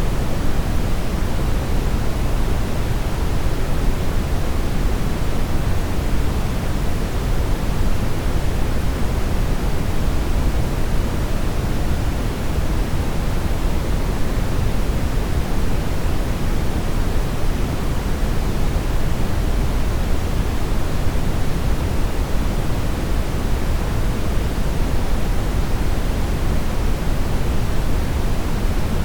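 Television static: a steady, loud rushing hiss of noise from a TV with no signal, even and unchanging throughout.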